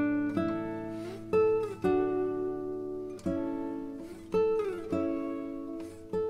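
Background acoustic guitar music, plucked chords with a new chord every second or so and some sliding notes.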